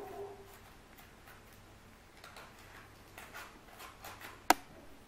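Hands pressing and tucking soft brioche dough into a paper baking mould: a few soft rustling and handling sounds, with one sharp click near the end.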